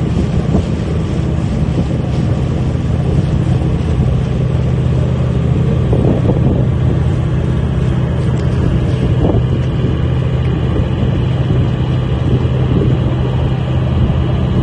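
A harbor launch's inboard engine running steadily under way: a constant low engine hum over a steady rush of wind and water.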